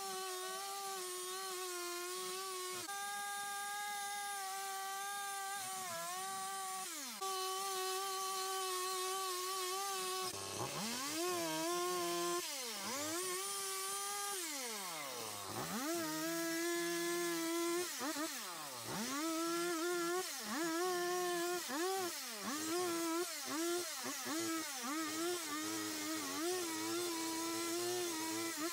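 Stihl two-stroke chainsaw cutting into a carving log at high revs. The note holds steady for about the first ten seconds. After that the revs drop and climb again over and over, about once a second, as the throttle is released and reopened between cuts.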